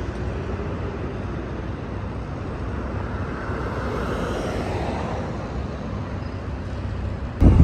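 Road traffic noise: a steady rumble of passing vehicles that swells a little in the middle as one vehicle goes by. A louder sound cuts in right at the end.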